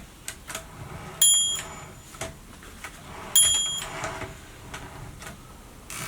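Carriage of a 1937 Erika M portable typewriter moved freely with the carriage release lever, its margin bell ringing twice, about a second in and again about three and a half seconds in. Light clicks and knocks from the carriage and levers sound between the rings.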